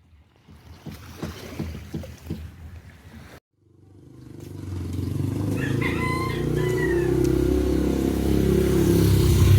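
A steady low motor hum builds up from about four seconds in and grows slowly louder. A short, bird-like call rises and falls above it about six seconds in. Irregular knocks come before the hum starts.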